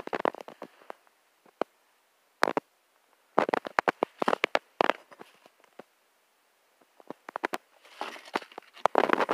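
Footsteps crunching and scraping on loose stone and gravel: clusters of sharp crackly clicks with near-silent gaps between them.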